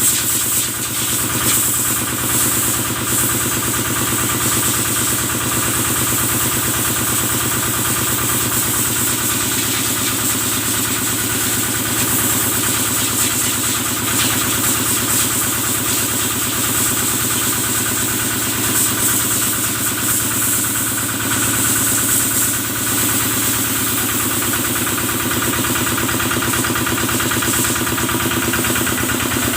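Kubota stationary engine running steadily, driving the sprayer used to wash the cattle, with a steady hiss of water spray over it.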